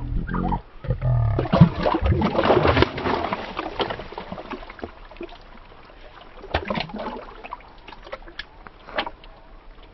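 Water splashing and sloshing, loudest for a few seconds near the start, then scattered single splashes.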